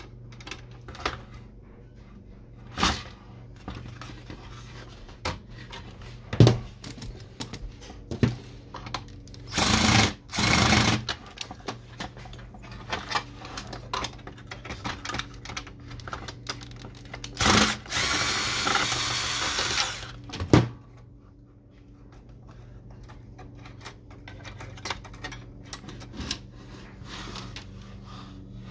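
Cordless drill-driver backing screws out of an inkjet printer's plastic chassis in short runs, the two longest about a third of the way in and about two-thirds of the way in. Between the runs come clicks and sharp knocks of the plastic frame being handled.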